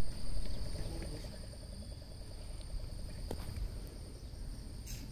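Insects chirring in two steady high-pitched tones over a low rumble that is loudest at the start.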